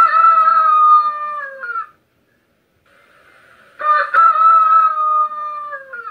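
Rooster crowing twice, about four seconds apart. Each crow is long and loud, holding its pitch and then dropping off at the end.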